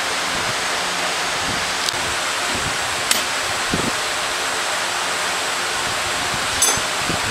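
Steady rushing workshop background noise, with a few light metallic clicks about two, three and near seven seconds in as parts are fitted to a motorcycle engine crankcase.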